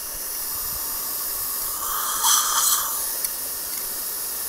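Dental suction hissing steadily in the mouth during a wisdom-tooth extraction, with a louder, rougher slurp for about a second near the middle.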